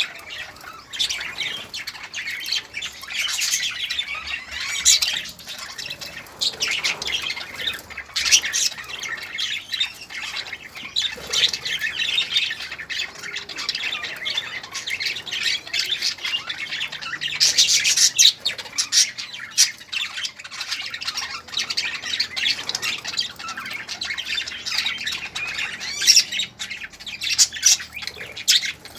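A flock of budgerigars chattering and squawking, many short high calls overlapping without a break.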